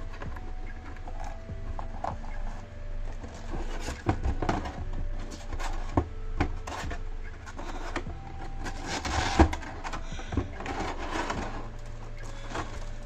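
Plastic blister packaging of a boxed figure being handled: irregular rustling and crinkling with sharp clicks and taps, the loudest click about nine seconds in.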